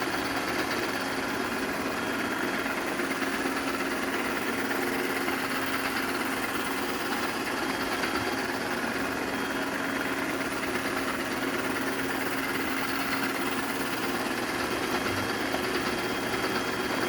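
Ecovacs robot vacuum cleaner running: a steady whirring hum from its suction fan and brush motors, with a faint high whine over it.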